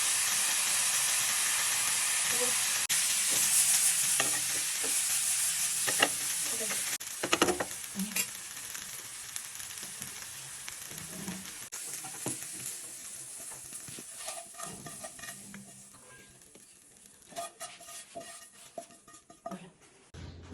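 Food sizzling in a hot pan while it is stirred, with utensil scrapes and knocks against the pan. The sizzle is strongest over the first few seconds, then dies away in the second half, leaving mostly scattered clinks.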